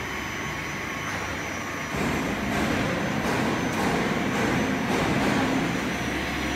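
GFJ-22 high speed disperser running, a steady mechanical drone that grows louder about two seconds in.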